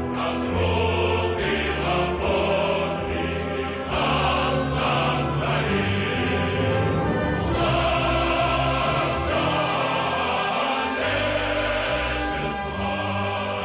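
Choral music: a choir singing sustained chords that change every second or two.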